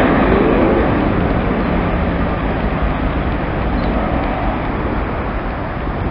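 Jet engines of an Airbus A320 running as it rolls along the runway: a loud, steady noise, with a whine shifting in pitch in the first second.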